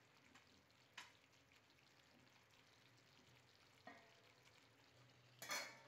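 Near silence with the faint sizzle of a potato curry cooking covered in a pan. A soft click comes about a second in, and a brief, slightly louder noise near the end.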